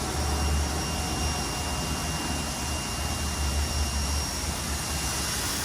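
Ryobi 2000 PSI electric pressure washer spraying water at high pressure: a steady hiss over a low rumble that eases off about four seconds in.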